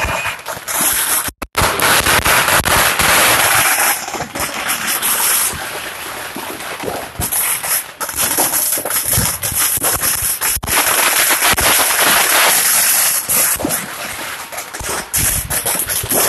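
Ground-level fireworks going off in a dense, rapid crackling and popping of many small bangs, growing louder and easing off in stretches.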